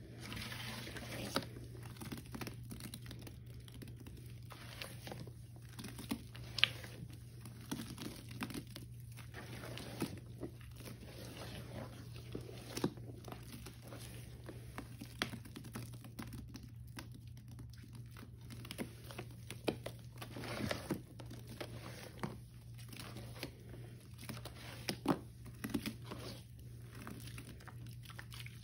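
Hands squeezing and kneading thick, wet Ajax cleanser paste in a glass bowl: an irregular run of wet squishes and crackles with an occasional sharper click. A steady low hum sits underneath.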